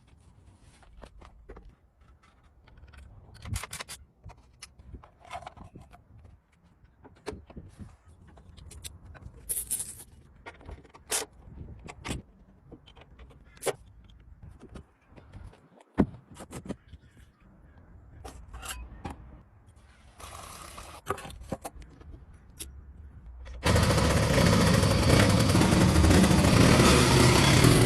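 Scattered sharp clicks and knocks of metal parts being handled and worked on. About 23 seconds in, a loud steady rushing noise suddenly starts and holds.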